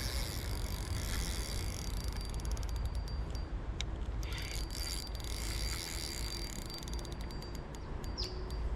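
Fishing reel clicking in runs of fast ticks, its drag or winding mechanism working while a hooked carp is fought.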